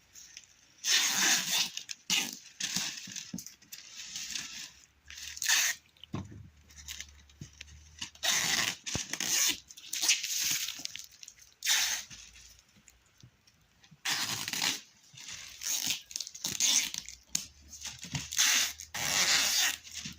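Rustling and crunching of apple-tree leaves and branches being handled, in irregular bursts of a second or two with short quiet gaps. A faint low hum comes in about six seconds in.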